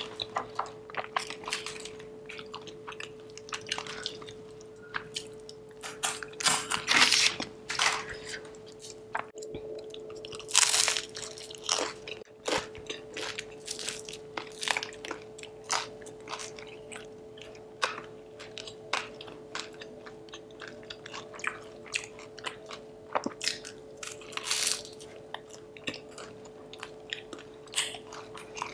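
Chewing and crunching of crisp butter masala dosa: irregular bites and crunches with a louder cluster now and then, over a faint steady hum.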